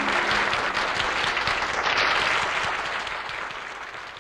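Live audience applauding and dying away over the last second and a half, just after the final held note of the song stops.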